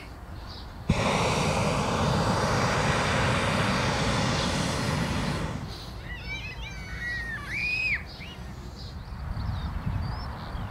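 Hot air balloon's propane burner firing in one long blast of about five seconds, a rushing hiss that cuts in suddenly about a second in and dies away. Birds chirp after it.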